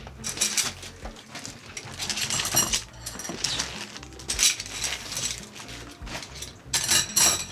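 Aluminium frame tubes and plastic corner connectors of a 3D printer enclosure clinking and rattling as they are handled and pushed together, in about four short bursts.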